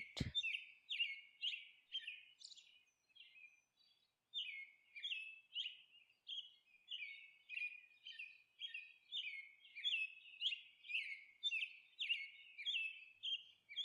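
Small birds chirping over and over: short high chirps, each dropping in pitch, about two a second, with a pause of a second or two shortly after the start.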